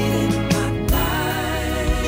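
An R&B song playing: a steady beat with a sung vocal line, the singing coming in about halfway through.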